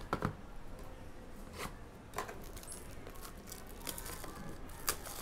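Clear plastic packaging crinkling and crackling as it is handled and torn, with a few short sharp crackles standing out.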